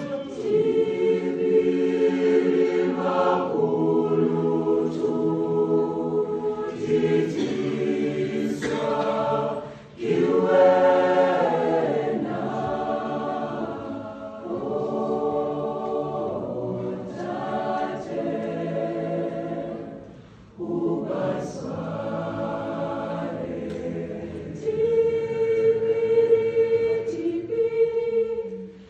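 A choir of several voices singing in harmony, holding long chords, with short breaks about ten and twenty seconds in.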